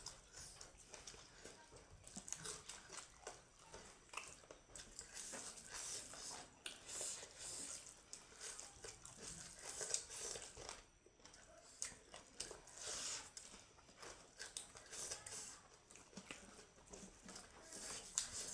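A person chewing and biting food close to the microphone: irregular wet smacks and small crunches.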